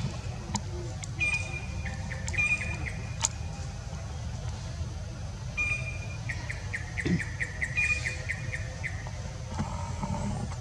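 A bird calling: a few short high whistled notes, then about six seconds in a quick run of a dozen or so repeated notes, over a steady low outdoor rumble.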